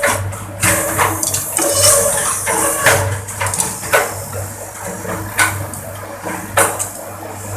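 Bamboo skewer-making machine (slicer and planer) running: a steady motor hum under repeated wooden clacks and knocks, with bursts of hissing from the bamboo being shaved.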